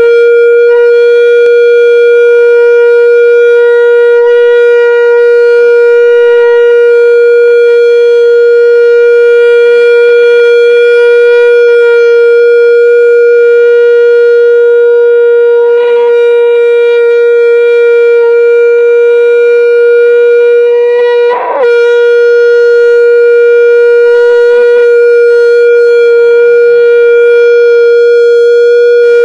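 A loud, steady, unbroken howl at one pitch from the stage PA loudspeakers, typical of microphone feedback from a cupped microphone. It wavers and dips briefly about 21 seconds in, then holds on at the same pitch.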